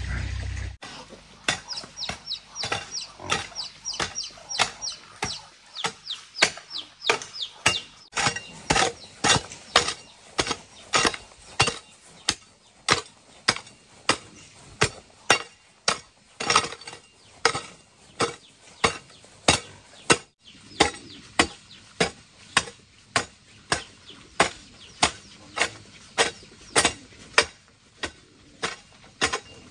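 Hoe blade striking hard, dry clay soil over and over, about three strikes every two seconds, each a sharp chopping thud that breaks up the clods.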